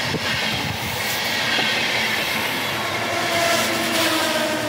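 Long-distance passenger train pulling in alongside the platform: a steady rumble with a high whine of several steady tones from the train, which grows a little louder in the second half.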